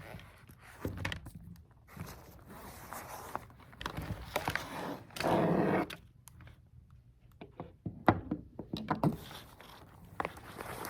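Small handling noises at close range: scrapes, light knocks and clicks, with one short loud rush of noise about five seconds in.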